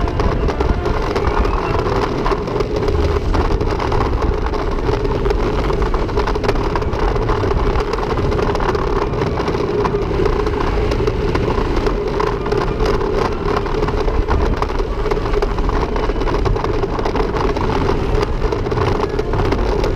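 Great Coasters International wooden roller coaster train running at speed on its track: a steady rumble and clatter of the wheels, with wind rushing over the onboard microphone.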